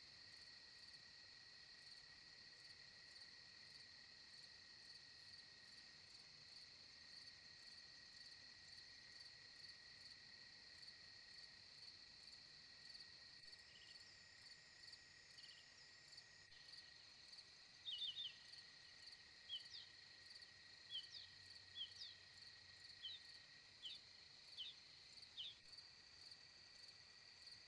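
Faint chorus of night insects: a steady high-pitched trill, joined in the second half by a run of short, quick chirps from another caller.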